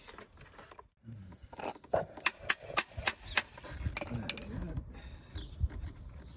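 Screwdriver working on a bank of motorbike carburettors sitting in a plastic drain pan: a quick run of sharp clicks and taps about two seconds in, then scraping and handling noise as the parts are worked.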